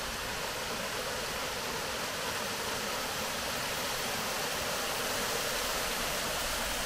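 Water leaking through the gaps of an old wooden canal lock gate and splashing down into the lock chamber, a steady rush that grows a little louder toward the end. The gate no longer seals tight.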